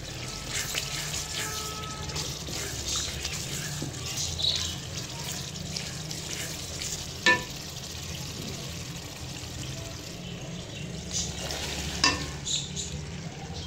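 Masala sizzling in oil in an aluminium karahi while a wooden spoon stirs and scrapes it, with scattered small clicks. A sharp knock about seven seconds in, and another knock near the end as cut radish pods (mongray) are tipped into the pan.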